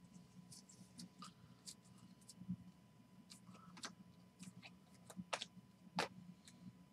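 Trading cards and plastic card holders handled and set down on a table: scattered faint clicks and taps, the sharpest two a little after five seconds and at about six seconds, over a faint steady hum.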